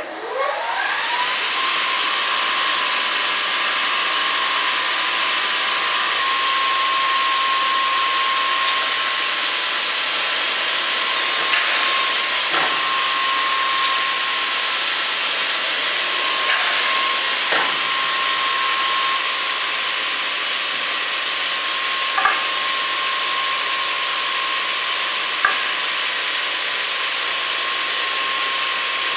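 Pistorius MN-300 double miter saw's two blade motors spinning up to speed at the start, their pitch rising and settling, then running with a steady high whine. A few brief hisses and knocks from the pneumatic cycle come through, twice in pairs about a second apart.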